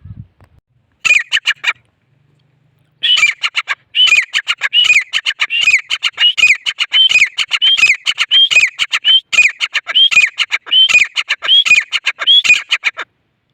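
Gray francolin calling loudly: a short burst about a second in, then after a pause a long run of quickly repeated, harsh phrases, each rising then dropping in pitch, that stops near the end.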